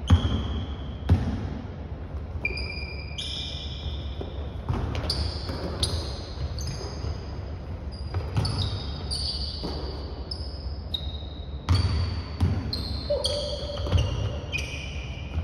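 A basketball bouncing on a hardwood gym floor, with frequent short high squeaks of sneakers on the wood as players stop and cut. The sharpest bounces come near the start, about a second in, and a few more near the end.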